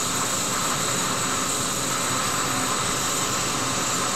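Steady background hiss and hum from the recording microphone, unchanging throughout, with no other sound.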